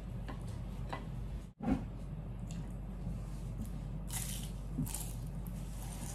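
Close-up eating sounds: biting into and chewing a fried chicken spring roll, with a few crisp crunches, the loudest about four and five seconds in, over a steady low hum.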